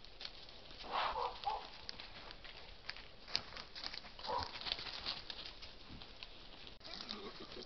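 Wild boar close by, giving short grunts twice, about a second in and again past the middle, over light crackling and rustling of undergrowth as it moves.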